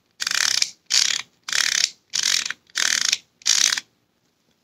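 Aperture ring of an SMC Pentax 55mm f/1.8 lens turned quickly back and forth six times, each sweep a rapid run of detent clicks. The ring turns freely and snaps through its stops with no resistance.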